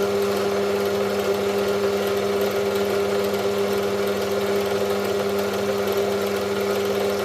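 Electric drill running at a steady speed with an even motor whine, driving a tool that grinds the end of a rotary engine side seal to profile against its corner seal.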